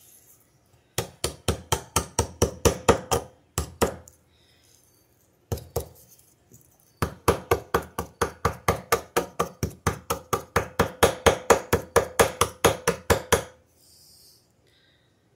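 Butter knife blade stroked rapidly back and forth on a sharpening stone, about five strokes a second. There are two long runs of strokes with a couple of single strokes between them.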